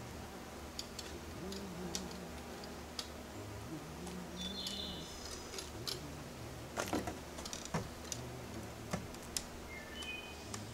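Irregular small clicks and taps, a quick cluster of them about two-thirds of the way through, over a steady low hum. A few short high bird chirps come in, one near the middle and one near the end.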